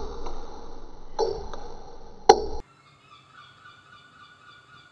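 Table tennis ball clicking sharply off bat and table, a handful of hits over about two and a half seconds. Then the sound drops to a faint room tone with thin steady tones.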